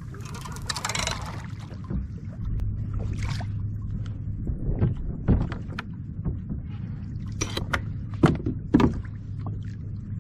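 Water moving against a fishing kayak's hull over a steady low hum, with scattered sharp knocks and clicks from tackle being handled on board. The strongest knocks come about five, eight and nine seconds in.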